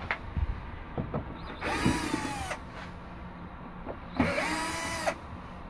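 Red cordless drill-driver run in two short bursts of about a second each, its motor whine spinning up and slowing, taking out the screws holding the cover of the coop door's control box. A few light knocks and clicks come before the first burst.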